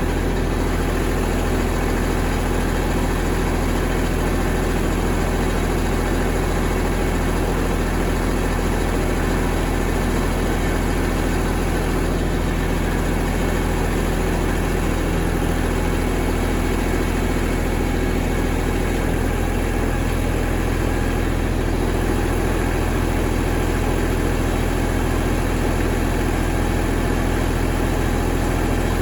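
A vehicle engine idling steadily, with a slight change in its low tone about two-thirds of the way through.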